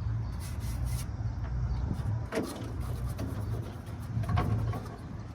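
A rag rubbing and wiping a dirty surface on the truck in a few short scuffs, over a steady low hum.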